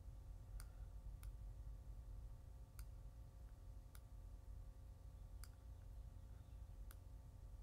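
Faint computer mouse clicks, about six of them spaced a second or so apart, over a low steady hum.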